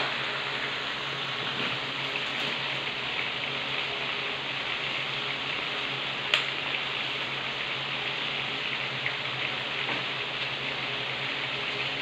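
Chicken livers simmering in soy sauce and broth in a stainless steel pot, bubbling and sizzling steadily. One sharp click about six seconds in.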